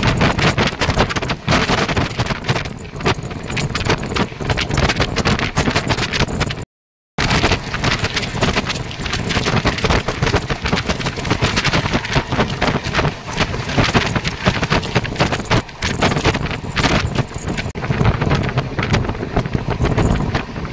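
Moving passenger train: a loud, continuous clatter and rumble of wheels on the rails, with wind buffeting the microphone.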